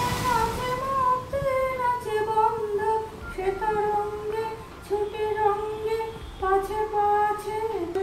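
Music: a woman's voice singing a slow melody in long held notes that glide from one to the next.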